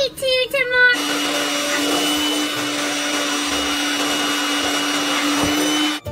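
Corded electric blower running steadily, an even rush of air with a constant hum. It starts abruptly about a second in and cuts off suddenly near the end.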